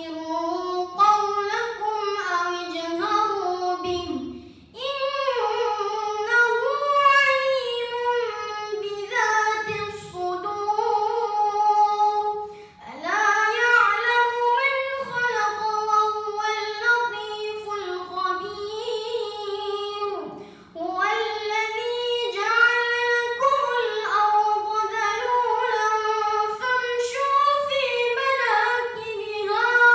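A boy's voice chanting Quranic recitation (tilawah) in Arabic. It is high and melodic, drawn out in long ornamented phrases with short breaths between them, four phrases in all.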